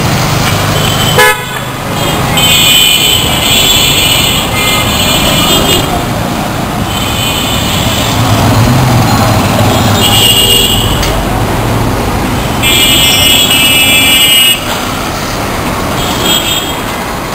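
Busy street traffic with horns honking again and again, about five honks of one to two seconds each, over the steady noise of passing rickshaws and motor vehicles. A motor engine rumbles past around the middle, and there is one sharp knock about a second in.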